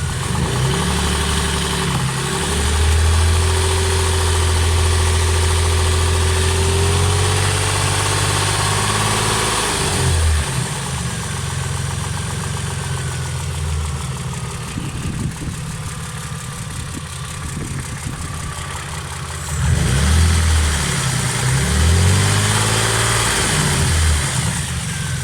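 Car engine idling and revved up a couple of times, with a knock that the owner wonders may be a connecting-rod knock.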